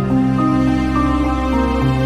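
Background music: slow, sustained synthesizer-like notes over a held bass, in a soft new-age style.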